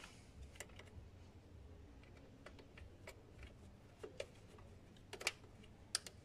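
A handful of faint, scattered clicks and taps as the throttle body's bolts are hand-tightened lightly back into place on the engine.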